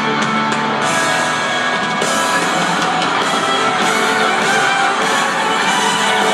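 Loud music played through stadium loudspeakers, a steady full-band texture with no break.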